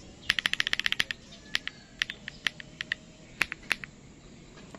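Keystrokes on an aluminium-cased mechanical keyboard fitted with thick double-shot Cherry-profile keycaps, typed on HMX Hyacinth 45g switches: a fast run of about a dozen presses in under a second, then scattered single presses that stop about three and a half seconds in.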